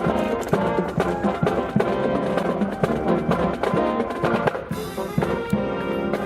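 Marching band playing: held brass chords over drums keeping a steady beat.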